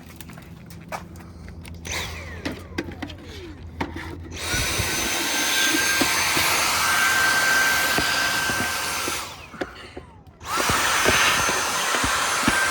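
Vacuum cleaner running with a steady high whine while it sucks debris out of an engine air filter box, with rattling clicks as the dirt is drawn in. It starts about four seconds in after some handling clicks, cuts out for about a second near the end, then starts again.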